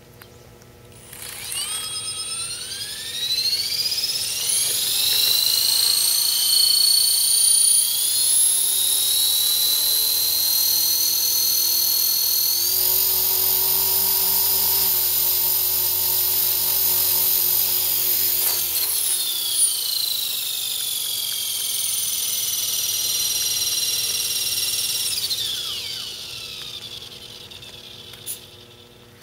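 Electric 450-size RC helicopter (EXI 450 Pro) spooling up: its motor and rotor whine rises in pitch over several seconds, runs at full speed through the flight, then falls away as the rotors spool down near the end.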